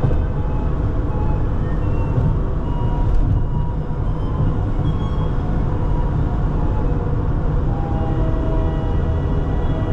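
Background instrumental music: held notes over a steady low rumble.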